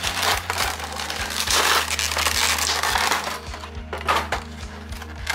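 Clear plastic blister packaging crackling and rustling as it is handled. Background music with a steady beat plays underneath.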